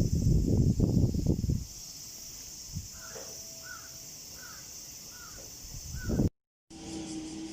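A crow cawing: a run of about five short caws, evenly spaced, following a loud low rumble in the first second and a half. Near the end the sound cuts out abruptly and a steady hum begins.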